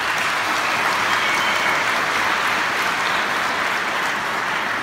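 Audience applauding, a steady, loud clapping that eases slightly near the end.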